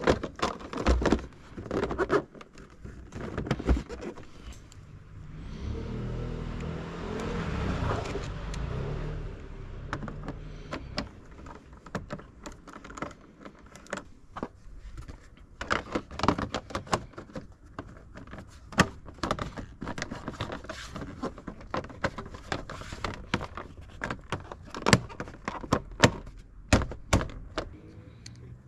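The plastic body panels and small fasteners of an ODES 650 Pathcross ATV being handled and unclipped during a teardown: many short clicks, knocks and rattles of hard plastic and loose metal parts. A few seconds of steadier rushing noise come partway through.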